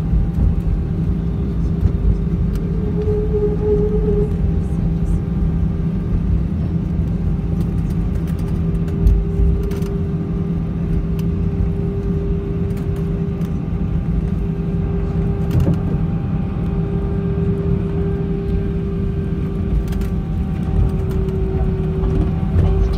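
Cabin noise of an Airbus A320ceo rolling along the taxiway after landing: a steady low rumble with a constant hum above it and a few faint clicks.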